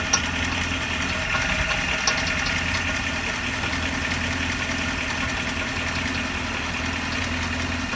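C6 Corvette's V8 idling steadily, with a noise that the owner places at the rear main seal and torque tube area. Two short sharp clicks come through, one just after the start and one about two seconds in.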